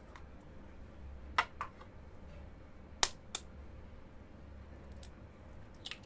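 Sharp taps of an egg knocked against a hard edge, four in two pairs about a second and a half apart, then a lighter crack near the end as the shell is broken open over a glass bowl.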